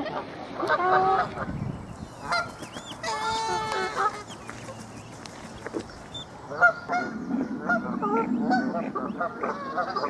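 Canada geese honking in alarm, in repeated bouts of calls with a quieter lull in the middle and a longer run of honks from about two-thirds of the way in. A single brief sharp sound stands out just before that last run.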